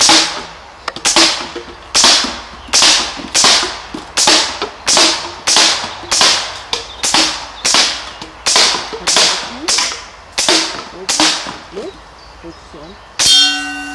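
Scoped rifle firing rapidly: about seventeen sharp cracks at an even pace of roughly one every two-thirds of a second, each with a short fading tail. Near the end a single sharp hit is followed by a steady ringing tone.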